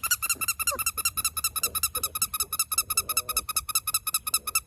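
A rapid, even trill of short high chirps, about ten a second, with faint puppy whimpers underneath.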